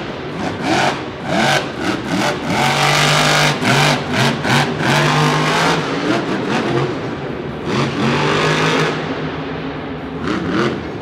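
Monster truck's supercharged V8 engine revving hard, the throttle stabbed on and off in quick repeated bursts with a few longer held pulls. It eases off to quieter running near the end.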